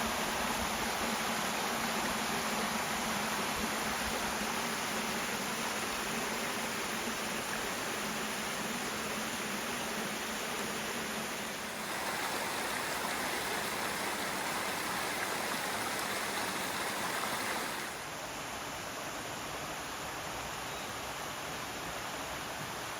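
Steady rushing of a mountain stream or small cascade. Its level and tone shift abruptly about twelve seconds in and again near eighteen seconds.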